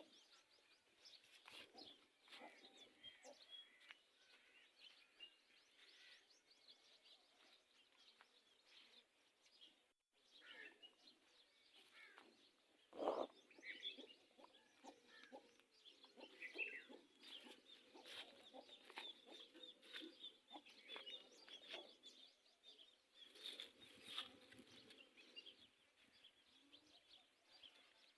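Faint chicken clucking and many short bird chirps, with one louder call about 13 seconds in.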